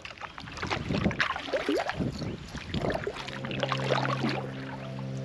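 Kayak paddle strokes splashing and dripping in the water. Steady background music fades in about three seconds in.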